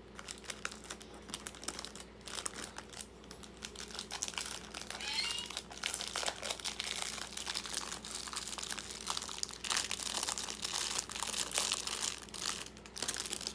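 Clear plastic sleeve and packing paper crinkling and rustling in irregular bursts as a wrapped potted orchid is handled and lifted out of its shipping box.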